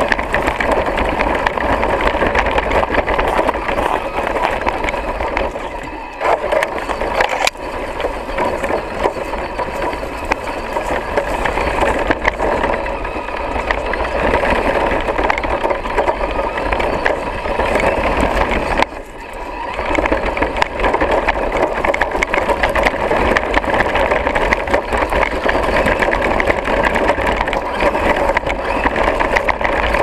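Axial Deadbolt RC trail truck driving over snow and dirt, heard from a camera mounted on the truck: its electric motor and geared drivetrain whine steadily over a constant rattle of the chassis and tyres. The sound drops off briefly a few times, about a fifth of the way in, again soon after, and about two-thirds through, as the throttle eases.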